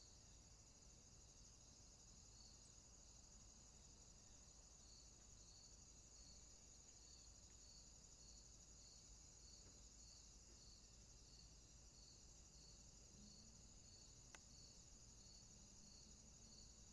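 Faint crickets: a steady high-pitched trill with a second insect chirping at an even pace, about one and a half chirps a second. One faint click about fourteen seconds in.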